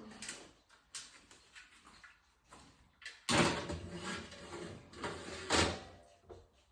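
Oven door being opened and a baking tray of chicken pushed in: light knocks, then a louder scraping clatter about three seconds in and another near the end.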